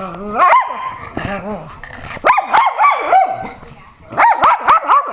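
Pug barking and yowling in short high-pitched yips that rise and fall in pitch, coming in bursts with a quick run of about five near the end: the excited yowling 'talk' typical of a feisty pug.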